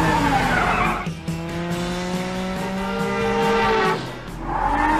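Animated-cartoon car sound effects over background music: tyres squealing, then a car engine running with a slowly rising pitch, then tyres squealing again near the end.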